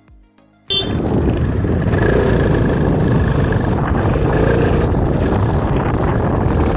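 Motorcycle being ridden at speed, heard from the rider's camera: a dense, steady rush of wind and engine and road noise that cuts in suddenly about a second in.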